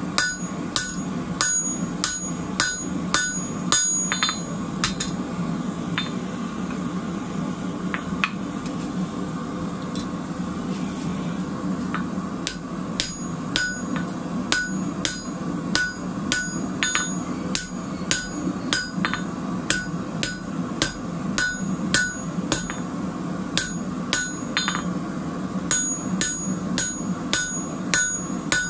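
Hand hammer striking a red-hot square bar on an anvil, about two blows a second, each with a short metallic ring. The blows thin out to a few scattered strikes for several seconds midway, then the steady hammering resumes. A steady low hum runs underneath.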